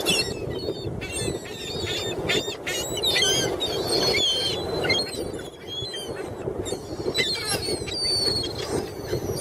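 A crowd of seagulls calling over one another: many short, high cries overlapping throughout, with a steady low rush beneath. The gulls are clamouring to be fed.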